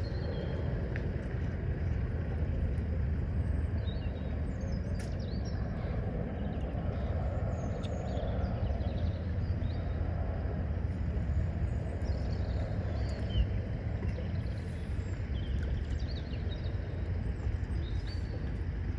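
Outdoor ambience: a steady low rumble, with many short bird chirps and calls scattered throughout.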